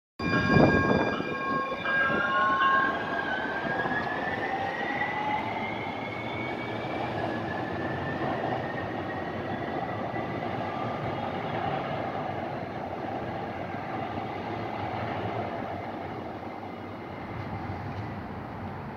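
Light rail train pulling away from the platform and accelerating: a whine rises in pitch over the first several seconds, over a steady rumble of wheels on rail that slowly fades. A steady chord of tones sounds for about the first two seconds.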